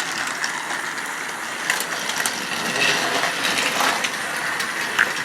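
Two battery-powered Trackmaster toy train engines running along plastic track: a steady motor whir and wheel rattle, with a few sharp clicks.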